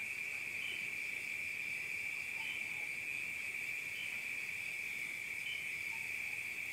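Night insects trilling in one continuous high-pitched drone, with a short, slightly higher chirp repeating about every one and a half seconds.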